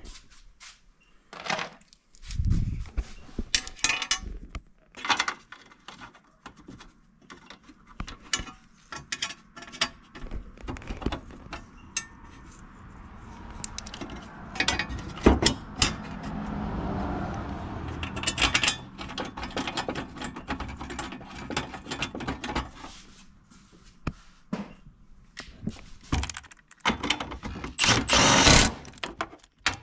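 Bolts being run into a truck's battery tray with hand tools: ratchet clicking, knocks and metal clatter. A steadier run of mechanical noise comes about halfway through, and a louder clatter near the end.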